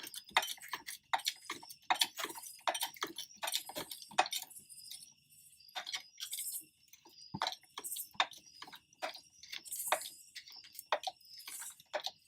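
Car jack being worked to lift the car, a run of irregular metallic clicks and clinks at about two or three a second, pausing briefly midway. Crickets chirp steadily behind it.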